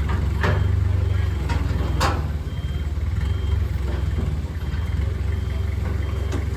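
A motor engine idling steadily, with a few sharp metallic knocks: one about half a second in, a louder one at about two seconds, and one near the end.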